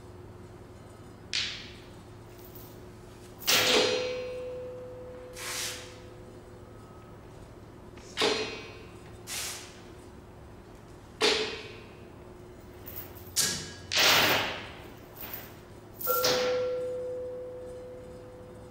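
Percussion ensemble playing sparse, isolated unpitched sounds: about ten short, sharp strikes and swishes spaced one to several seconds apart, each fading quickly. Two of them, one early on and one near the end, leave a clear ringing tone that dies away over about two seconds.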